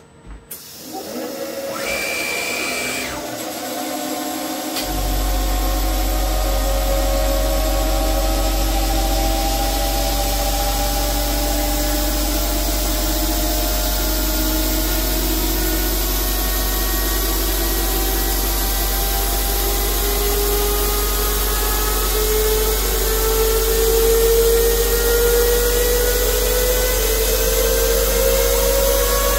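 CNC metal lathe spindle spinning up and turning an aluminium part in its chuck: a machine whine that climbs slowly in pitch throughout, with a steady low hum setting in about five seconds in.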